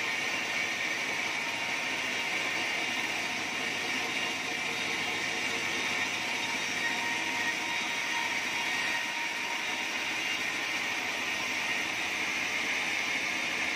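Sawmill band saw cutting lengthwise through an acacia log as it is fed past the blade: a steady, unbroken rushing noise of blade and machine.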